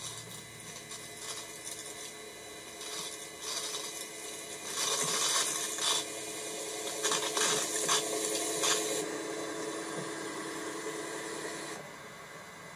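Rotary snowplow's blower running with a steady whine while it chews through snow, with rough hissing and scraping bursts as it throws the snow. The whine stops suddenly near the end.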